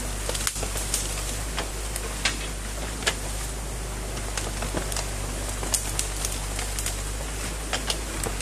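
Mini excavator's diesel engine running steadily at a low hum while its bucket pulls apart a beaver dam, with irregular sharp cracks and snaps of sticks and branches breaking.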